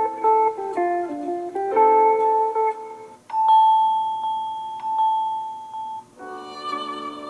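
Samsung Galaxy S21 stock ringtones playing: a melody of short pitched notes that stops about three seconds in, then a long held tone with light repeated higher notes, and near the end a fuller, denser melody begins.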